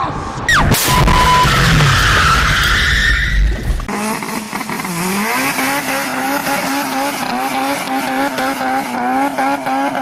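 A car's engine held at high revs while the car spins donuts with its tyres smoking. The engine pitch wavers up and down about twice a second over tyre squeal. It is preceded by a loud rushing noise that cuts off abruptly about four seconds in.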